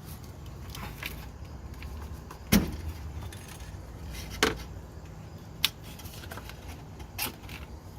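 A few separate sharp clicks and knocks of metal parts being handled on a small engine, the first the loudest, over a low steady hum. This fits checking the engine oil.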